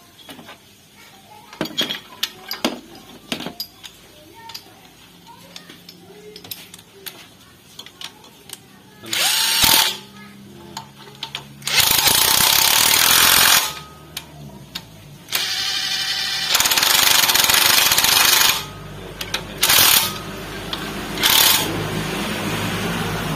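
Air impact wrench running in several loud bursts over the second half, the longest two to three seconds, with two short blips near the end: bolts being run in while the engine mounts are fitted. Before the bursts come scattered light metal clinks of tools.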